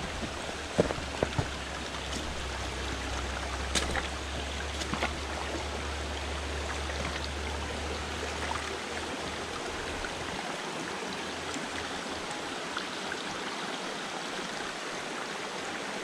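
Small mountain stream running over rocks, a steady rush of water, with a few light knocks in the first five seconds and a low rumble that fades out about ten seconds in.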